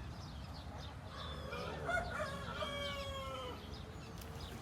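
A rooster crows once, starting about a second in: one call of about two and a half seconds whose long held note sags in pitch at the end.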